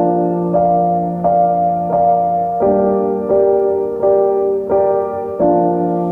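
Background music: a piano playing sustained chords, a new chord struck about every 0.7 seconds in an even pulse.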